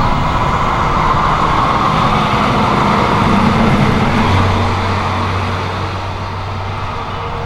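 Loud jet engine noise of a cargo airliner arriving on the runway, a steady rushing roar that eases slightly toward the end, with a low hum joining about four seconds in.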